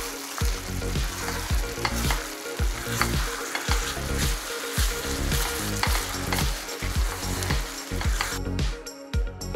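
Buckwheat noodles and chicken hearts bubbling and sizzling in a frying pan on a high gas flame as the extra water boils off, with a wooden spatula stirring and scraping through them. The sizzle falls away near the end.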